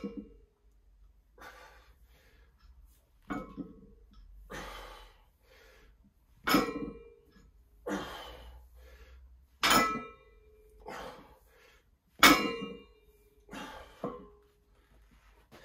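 Barbell deadlift reps with iron plates at 140 kg. Each time the bar is set down the plates clank with a short ring, several times a few seconds apart, with heavy breathing between the reps.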